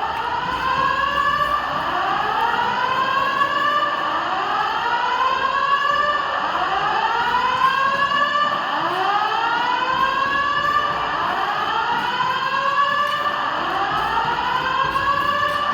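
Building fire alarm sounding a repeating rising sweep tone, each sweep climbing for a second or two. Several sounders are out of step, so the sweeps overlap.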